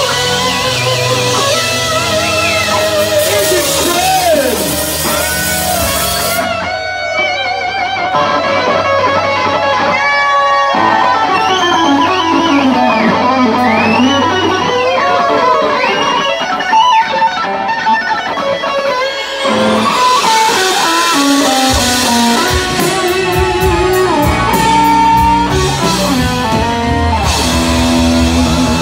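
Live rock band playing, with an electric guitar in front playing a lead full of bent, gliding notes. The high cymbal sound thins out from about six seconds in and comes back fully about twenty seconds in.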